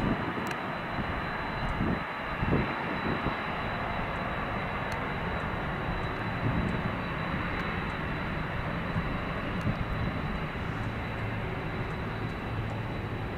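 The four jet engines of a departing Boeing 747 making a steady, even jet noise with a low rumble underneath.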